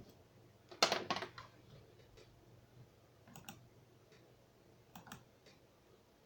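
Clicks and taps on a computer: a quick cluster about a second in, then single clicks about three and a half and five seconds in.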